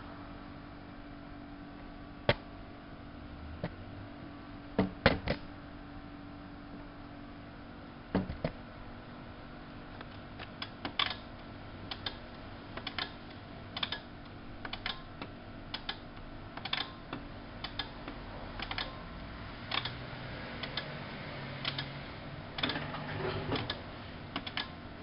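Siemens Siwamat washing machine clicking and clacking irregularly over a steady low hum, the clicks coming more often from about ten seconds in.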